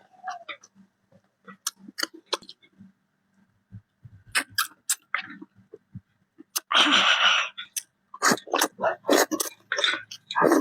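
A person eating hotpot with noodles, with repeated short, wet chewing and mouth clicks. About seven seconds in there is one louder, breathy noise that lasts about a second.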